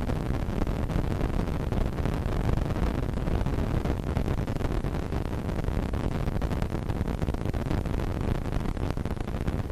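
Storm noise: strong wind buffeting the microphone over heavy falling rain, loud and unbroken.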